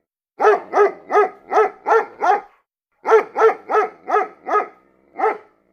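A dog barking repeatedly: six quick barks, a pause of about half a second, then six more.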